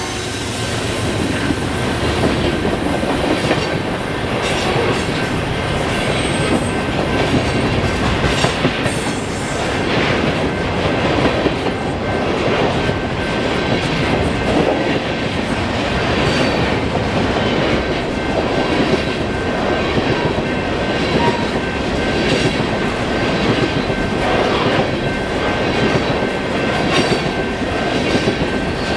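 Freight train cars rolling past at track speed: a steady rumble and clatter of steel wheels on rail, with a faint, thin, steady wheel squeal.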